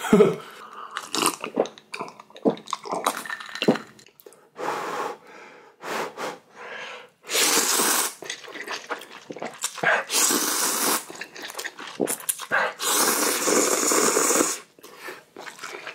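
A person eating spicy ramyeon noodles, with three long loud slurps in the second half and short wet chewing and mouth sounds between them.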